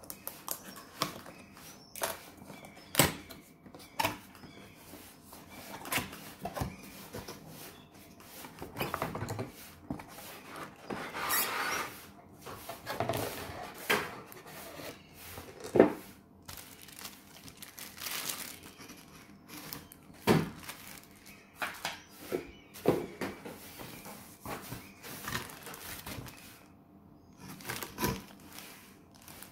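Cardboard box being opened and unpacked by hand: irregular taps, knocks and scraping rustles of cardboard flaps and a moulded pulp insert, with plastic bags and paper crinkling near the end.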